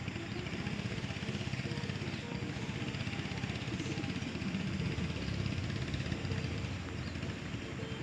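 Small engine of a motorised sampan boat running steadily as it crosses the river.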